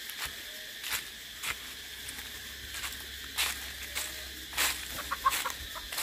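Cicadas droning steadily, with chickens clucking now and then and several clucks close together near the end.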